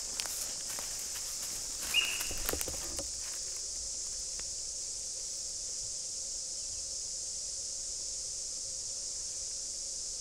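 Footsteps crunching through bush litter for the first few seconds, and about two seconds in a single short, high squeal from a sika deer: its alarm call on spotting the hunter. A steady high hiss runs underneath throughout.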